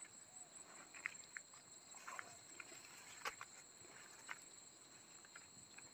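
Near silence: a faint, steady, high insect trilling, with a few soft ticks and rustles.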